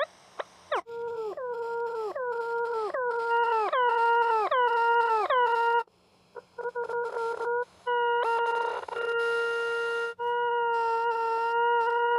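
Electronic tones from the Desmos graphing calculator's sound feature: one buzzy pitched tone that swoops downward over and over, about twice a second. About six seconds in it drops out briefly and comes back in short choppy bits, then holds one steady pitch with a few short breaks.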